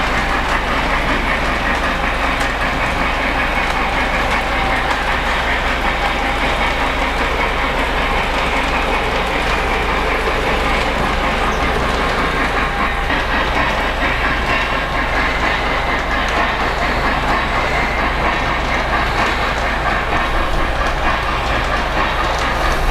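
O-gauge Lionel model train running steadily on its track, with the wheels and cars clattering over the rails.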